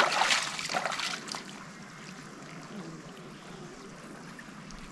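Cast net being hauled through shallow river water: a splashing swish in the first second or so, then only a faint steady hiss of trickling water.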